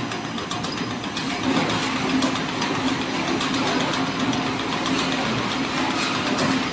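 PE foam fruit-net extrusion line running: a steady machine hum with one constant low tone over a wide noisy wash, with scattered faint clicks.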